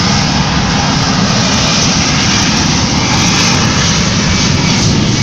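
Jet airliner's engines running loud and steady at close range, a dense roar with no break.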